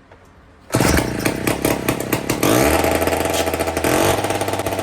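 Mid-1950s David Bradley two-stroke chainsaw engine firing up under a second in and running, revving up about halfway through and holding at a high, uneven speed.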